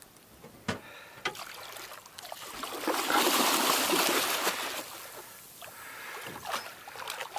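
A hooked fish thrashing and splashing at the surface right beside the boat. The splashing is loudest from about three to four and a half seconds in, then dies away. A few short clicks come before it.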